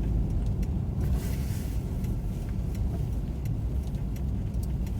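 Steady low rumble of a car heard from inside the cabin, with faint regular ticking from the hazard-light flasher and a brief hiss about a second in.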